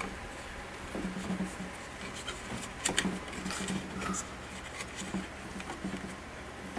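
Handling noises of a rubber butt pad being fitted onto a synthetic AK folding stock: rubbing and light tapping, with a few sharp clicks about three seconds in.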